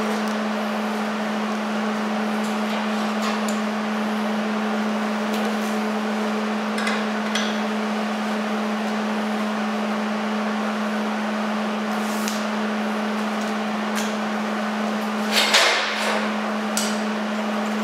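Steady low hum of a running machine, with scattered clicks and knocks of tools and metal being handled on a steel bench, and a louder clatter about fifteen seconds in. No welding arc is heard yet.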